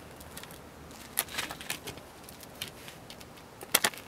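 Ratchet socket wrench cranking down a lag bolt through a metal roof flashing plate, giving scattered clicks, with a loud pair near the end.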